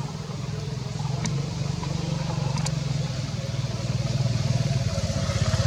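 Motorcycle engine running steadily, growing louder toward the end, with a couple of faint clicks.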